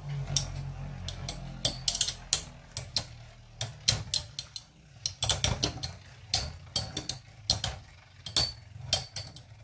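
Two Metal Fight Beyblades, Hades Kerbecs and its opponent, spinning and clashing in a plastic stadium: sharp metallic clicks and clacks, several a second at an uneven pace, as their metal wheels knock together.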